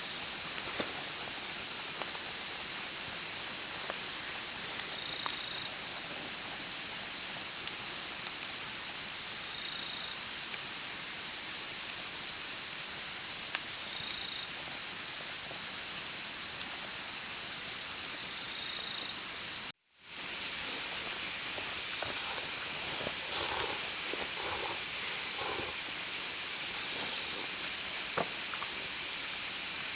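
A steady high-pitched insect trill over an even outdoor hiss, with a few faint clicks. The sound drops out for a moment about two-thirds of the way through, at a cut.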